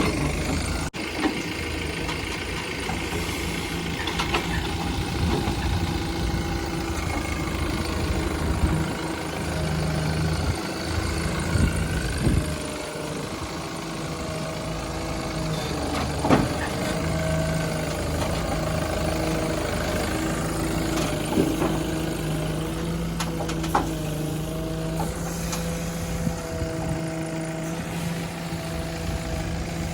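Tata Hitachi Shinrai backhoe loader's diesel engine running steadily at idle, with a few short sharp knocks over the top.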